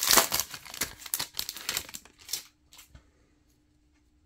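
Wrapper of a Bowman baseball card pack crinkling and tearing as it is opened and the cards slid out: a rapid run of crackles for about two seconds, then a few fainter rustles.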